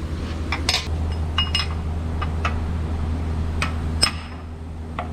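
Hammer striking a long steel chisel set against the CV axle to knock it loose, about eight sharp metal clinks with brief ringing, irregularly spaced, the loudest about four seconds in. A steady low hum runs underneath.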